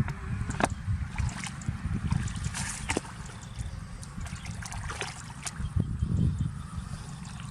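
Water splashing and dripping in short scattered ticks, over a steady low rumble.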